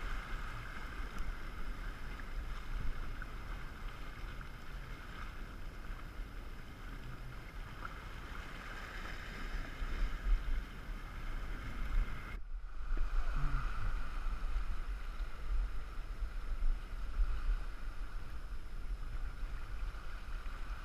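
Wind rumbling on the camera microphone over the sea lapping against shore rocks, steady throughout, with a brief dropout about twelve seconds in.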